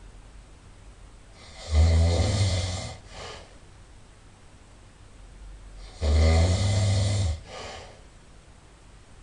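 A person snoring loudly: two deep, rasping snores about four seconds apart, each lasting about a second and followed by a short, fainter breath.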